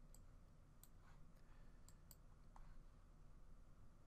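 Near silence with a handful of faint, sharp computer mouse clicks, scattered unevenly.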